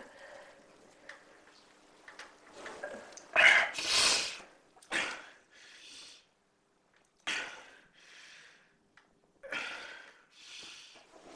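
A person's loud, breathy outbursts that are not speech, coming in pairs every couple of seconds, with quiet gaps between.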